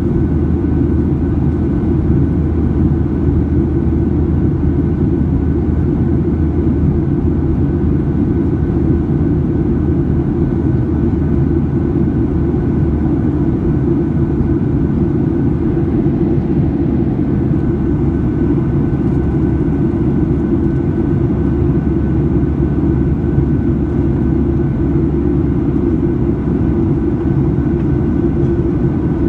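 Steady cabin drone inside a Boeing 737-800 in flight: an even low rumble with a faint steady high tone above it, unchanging throughout.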